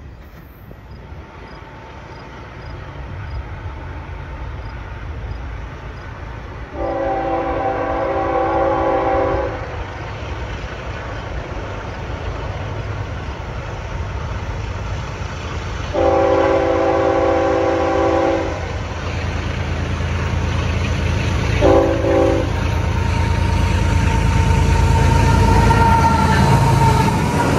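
CSX freight locomotive's multi-chime air horn sounding two long blasts and then a short one, over the low rumble of the GE Evolution-series diesel locomotives and train. The rumble builds and is loudest near the end as the lead locomotive passes close by.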